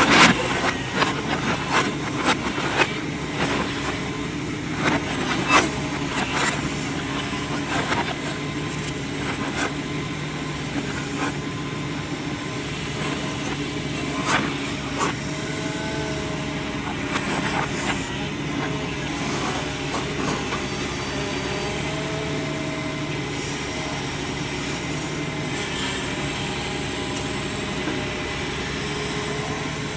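Excavator diesel engine running steadily, with repeated sharp metal clanks and knocks over the first several seconds before it settles into an even drone.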